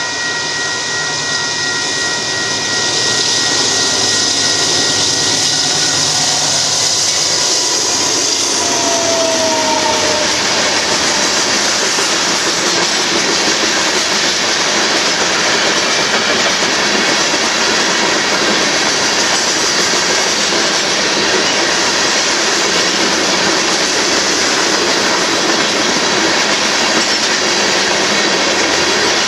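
Freight train's cars rolling past on the rails, a loud steady wheel-on-rail noise. A whine of several steady tones fades out over the first several seconds, and a short falling squeal comes about nine seconds in.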